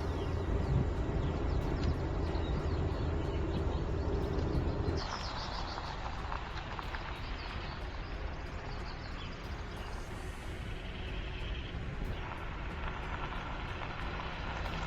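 Driving noise of an electric van, a steady low rumble of tyres and road for about five seconds. It then cuts suddenly to quieter outdoor ambience with a few bird chirps.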